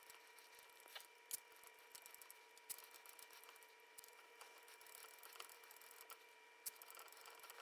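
Near silence: a few faint short clicks and taps from a hand working the amplifier's control pot knobs, over faint steady tones.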